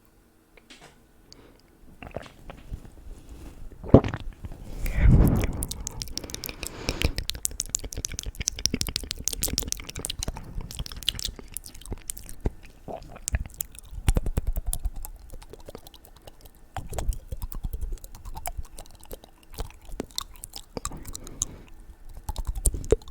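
Close-miked ASMR mouth sounds: rapid wet clicks and smacks of the tongue and lips, dense and irregular, with a sharp loud hit about four seconds in followed by a short low rush.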